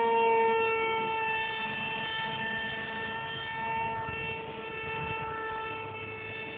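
Electric motor and propeller of an RC Powers F117 v2 foam model jet in flight: a steady high whine with a stack of overtones. The pitch wavers slightly, and the whine is loudest near the start, then slowly fades.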